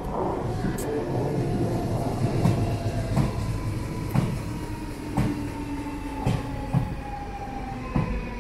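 Copenhagen S-tog electric multiple unit (DSB Litra SA) rolling along the platform as it slows: its motor whine falls slowly in pitch over a low rumble, with wheel clicks over rail joints about once a second.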